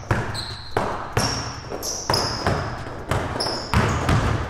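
A basketball being dribbled hard on a hardwood court: about seven bounces at an uneven pace, under a second apart. Short high sneaker squeaks come from the players' shoes on the floor between the bounces.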